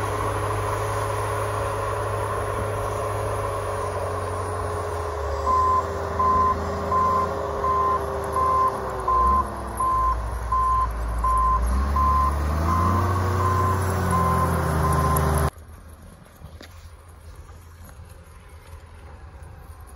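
CAT 938G wheel loader's diesel engine running while its backup alarm beeps, about one and a half beeps a second, as the loader reverses; the engine speed dips and climbs back in the middle. The sound cuts off suddenly near the end, leaving only a faint background.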